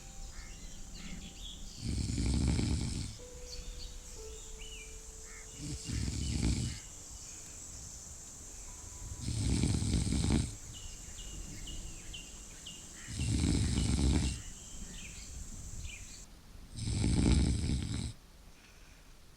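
Snoring: five loud snores, each about a second long, coming steadily every three and a half to four seconds.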